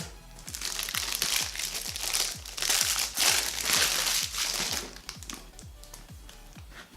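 Packaging crinkling and rustling as a box is opened by hand, loudest in the middle, over background electronic music with a steady kick-drum beat.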